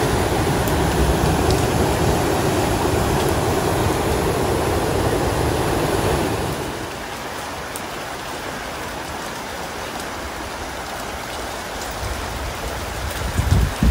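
Tahquamenon Falls' tannin-brown water rushing over the ledges in a loud, steady, full-bodied rush. About six and a half seconds in it gives way to the quieter, thinner rush of a small rapid in a shallow stream, with a couple of low bumps near the end.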